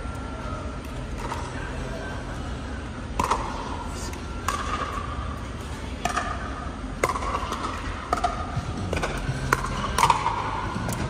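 Pickleball paddles hitting a hard plastic ball in a rally: about eight sharp pops roughly a second apart, ringing briefly in a large air-supported dome, over a steady low hum.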